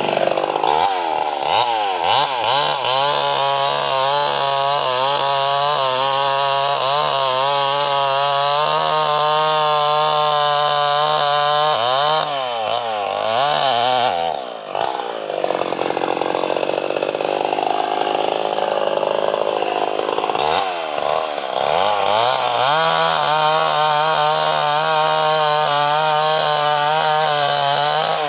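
Two-stroke chainsaw running at high revs while cutting into a mahogany trunk, its engine pitch sagging and recovering as the chain bites into the wood. About halfway it eases off briefly, then revs back up and runs steadily again.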